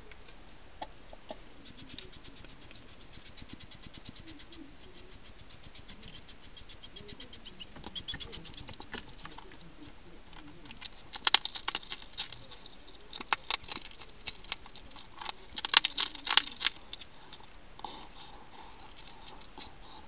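Hedgehog eating at close range, smacking and chewing in fast runs of small ticks, then louder bursts of crunching in the second half as it eats the dry biscuits.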